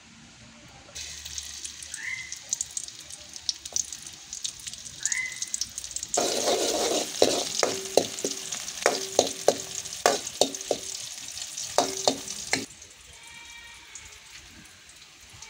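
Chopped onions frying in hot coconut oil in an aluminium kadai: a light crackle, then a louder sizzle for about six seconds in the middle while a metal spoon stirs, clinking against the pan a dozen times with a short ring each time. The sizzle then drops back to a faint hiss near the end.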